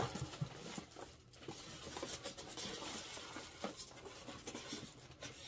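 Plastic wrapping crinkling and rustling, with small scrapes and clicks, as a large plastic-wrapped toy ship is worked out of its styrofoam packing tray.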